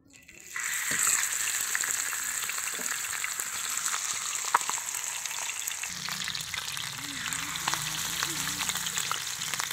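Hot oil in a shallow frying pan bursting into a sizzle about half a second in as a spice-coated whole field rat is dropped in, then frying steadily, with a second rat added to the oil near the end.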